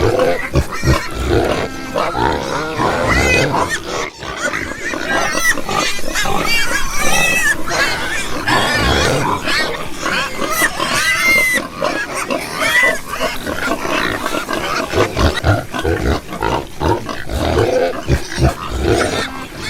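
Domestic pigs grunting, with many high squeals arching over the grunts.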